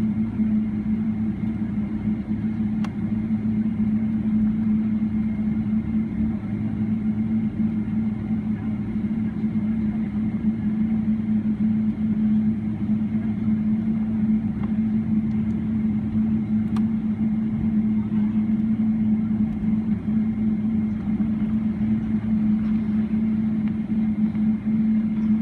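Steady low drone inside the cabin of a Boeing 777-300ER taxiing on its GE90-115B engines, level and unchanging throughout.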